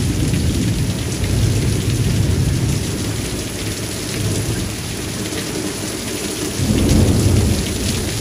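Heavy downpour hissing steadily, with thunder rumbling low underneath; the rumble eases through the middle and swells again near the end.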